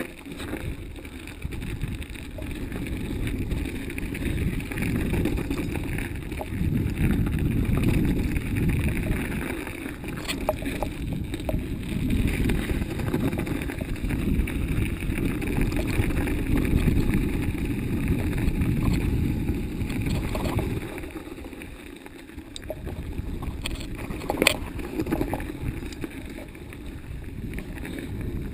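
Mountain bike ridden along a snowy forest trail: a steady low rumble of wind on the microphone, mixed with the tyres and rattling bike. The rumble eases briefly about three-quarters of the way in, and a single sharp knock follows soon after.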